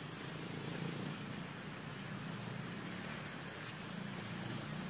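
Steady outdoor background noise: a low rumble under an even hiss, with a thin high whine that stops about three seconds in.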